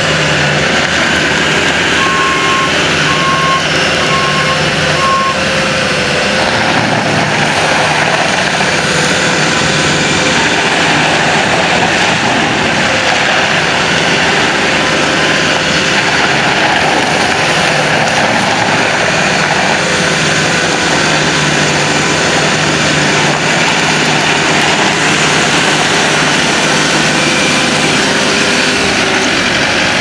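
Bobcat S750 skid steer's diesel engine running steadily as the machine drives, with a backup alarm beeping four times about two seconds in.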